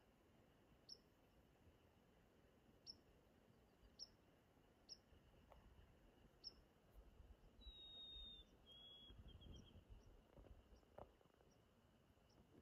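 Near silence with faint wild birdsong: scattered short high chirps, and about eight seconds in a clear whistled song of a long held note, a slightly lower one, and a few quick notes.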